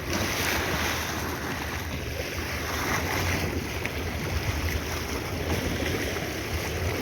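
Steady wind on the microphone over sea water and waves, with a low steady hum underneath.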